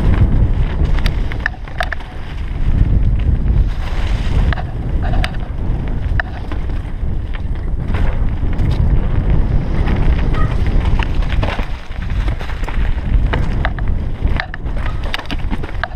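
Wind buffeting the microphone of a helmet-mounted camera on a fast mountain-bike descent, a steady loud rumble. Over it, the bike's chain and frame rattle in scattered sharp clicks on the rough trail.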